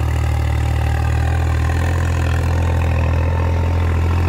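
Diesel farm tractor engine running steadily, a deep even drone.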